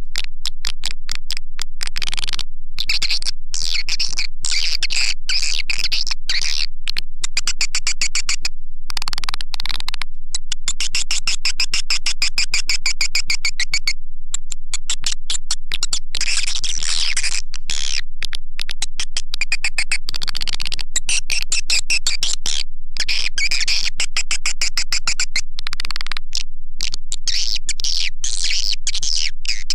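Swiftlet lure call (suara panggil) played as a recording for a swiftlet house: dense, high-pitched swiftlet chirping and rapid clicking twitters, kept at a steady loud level with brief breaks.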